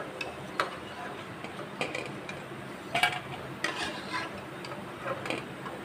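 Perforated steel skimmer scraping and clinking against the metal kadai as fried fritters are scooped out of the oil: a scatter of short scrapes and taps, several over a few seconds.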